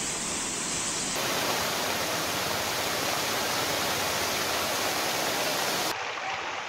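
Rushing floodwater: a river in spate and water pouring over an overflowing check dam, a steady rush of water. It changes abruptly about a second in and again near the end, where it drops to a softer flow, as in floodwater running down a street.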